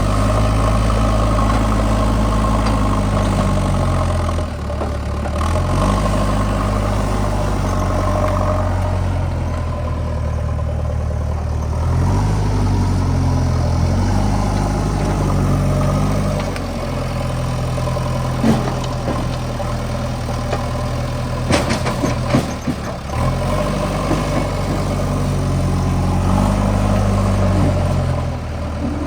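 A heavy diesel engine running, its pitch going up and down several times as the revs change. There are a few sharp knocks around two-thirds of the way through.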